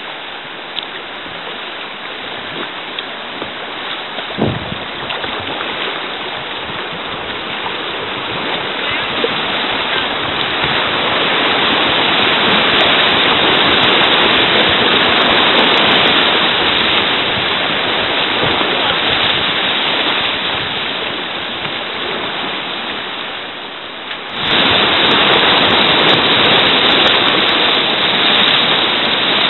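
Whitewater of river rapids rushing steadily and loudly, with one short thump about four seconds in. About 24 seconds in the rush dips briefly, then jumps back louder.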